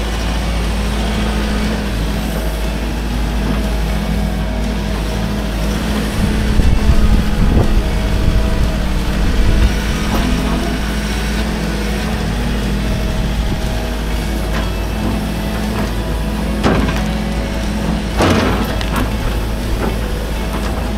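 Case 145 excavator's diesel engine running steadily with its hydraulics working, growing louder for a few seconds about six seconds in. Near the end there are a few sharp knocks as the bucket and thumb grab the tree stump.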